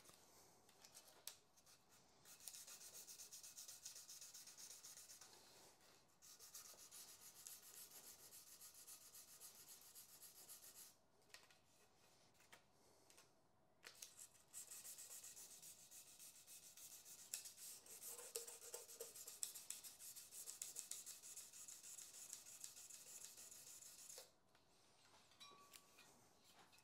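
Sandpaper being rubbed by hand over the cured epoxy and carbon resin patch on a carbon bicycle rim, faint, in several runs of quick strokes with short pauses between them.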